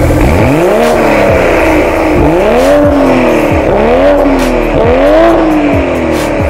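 BMW M440i's B58 turbocharged inline-six free-revved four times through a Fi Exhaust valvetronic cat-back and catless downpipe, each rev climbing quickly and falling back.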